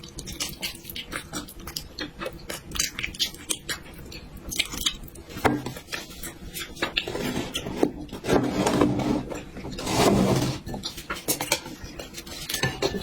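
Close-miked eating sounds: chewing and mouth clicks, with a louder, noisier stretch of eating between about eight and ten seconds.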